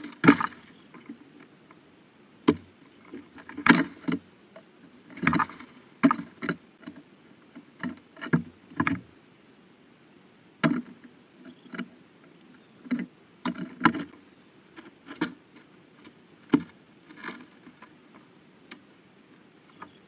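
Blue jays landing on and pecking at a wooden platform bird feeder right by the microphone: some twenty irregular knocks, bumps and brief wing flutters, with quiet gaps between them.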